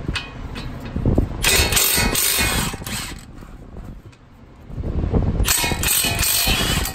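Impact wrench hammering in two bursts of about a second and a half each, a few seconds apart.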